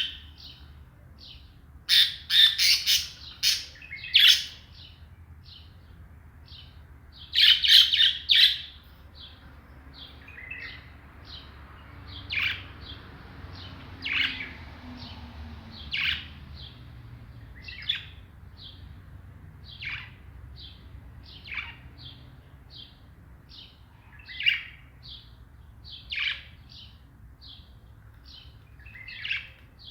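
A couple of caged birds chirping: short, high chirps about once a second, with louder clusters of rapid chirps a couple of seconds in and again around eight seconds. A low steady hum runs underneath.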